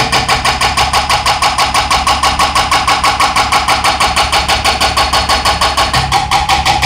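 Hydraulic breaker on a Cat mini excavator pounding a concrete floor: rapid, evenly spaced hammer blows, several a second, over the excavator's diesel engine running under load. The engine's low hum grows stronger about six seconds in.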